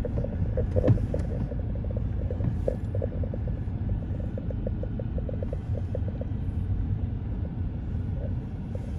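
Car driving slowly over a rough, muddy dirt road, heard from inside the cabin: a steady low rumble from engine and tyres, with a run of light quick clicks in the middle.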